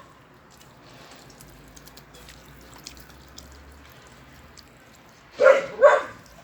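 A dog barks twice in quick succession near the end, after a few seconds of quiet with faint small clicks.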